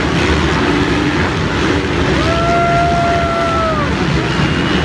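Many motocross dirt bikes racing, their engines running together in a dense, loud din. One held engine-like note stands out for about two seconds in the middle.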